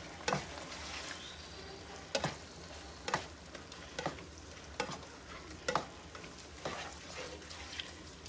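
Spatula scraping and stirring ground beef and tomato sauce in a skillet, about one stroke a second, over a steady sizzle from the hot pan.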